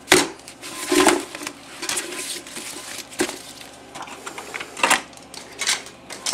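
Plastic lid of an Apple II Plus case being popped open and handled: a sharp click just after the start, then scattered knocks and taps of plastic.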